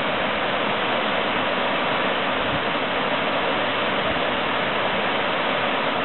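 A waterfall's water pouring down a rock face into a pool, rushing steadily without change.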